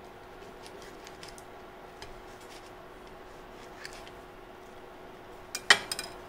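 Knife cutting through a freshly cooked kulcha on a plate: faint scattered clicks and taps, then a cluster of sharp clicks of metal on the plate about five and a half seconds in.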